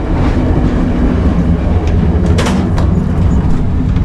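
VIA Rail's Canadian passenger train running at speed, heard from the stainless-steel vestibule between cars: a loud, steady rumble of wheels on track with scattered sharp clacks and knocks, the loudest about two and a half seconds in.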